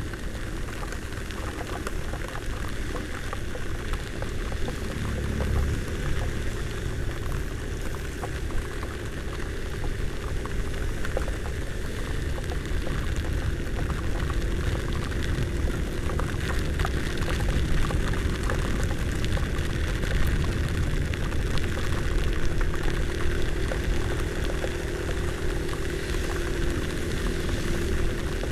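Heavy rain and wind on a helmet camera while riding a Honda Vario 125 scooter: a steady rushing and low rumble with many small ticks of raindrops striking the camera, and the scooter's single-cylinder engine running steadily beneath it.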